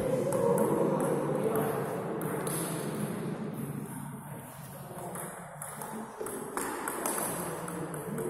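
Table tennis ball being hit back and forth in a rally, clicking off the paddles and bouncing on the table in a quick, irregular series of sharp taps.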